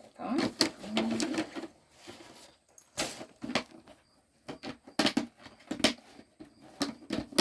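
Hard plastic dome being fitted onto a fabric pet carrier backpack: an irregular string of sharp plastic clicks and knocks with handling rustle between them.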